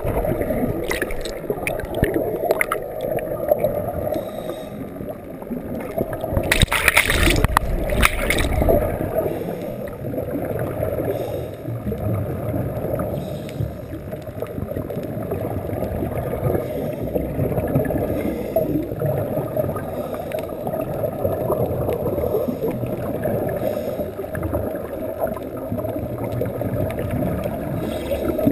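Muffled underwater noise heard through an action camera's waterproof housing: a steady low rushing of water with gurgling. Two louder bursts of bubbling come about seven and eight seconds in.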